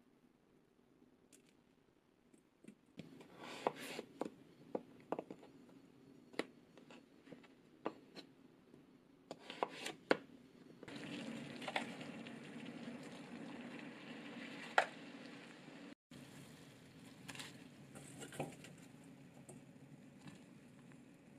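Kitchen knife cutting broccoli on a wooden cutting board: sharp knocks at uneven intervals. After them comes a steady hiss with a few scattered knocks.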